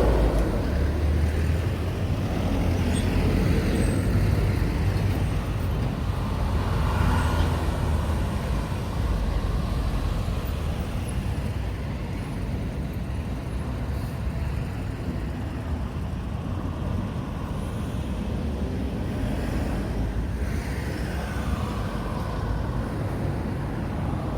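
Road traffic: motor vehicles passing on the street, with several going by in the first eight seconds, then lighter, steadier traffic noise.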